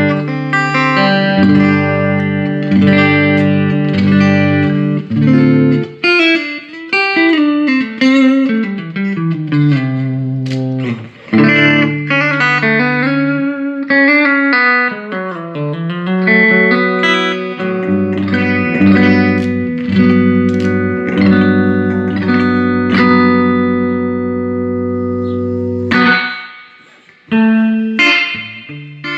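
Electric guitar played through a Fender Ultimate Chorus 2x12 combo amp: sustained chords broken by descending single-note runs. The playing stops briefly about 26 seconds in, then starts again.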